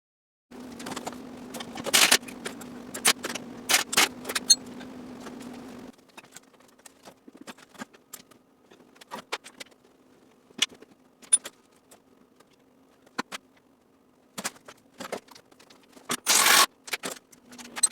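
Metal parts and tools being handled: irregular clicks, clinks and scrapes over a steady low hum that drops in level about six seconds in, with a louder stretch of scraping near the end.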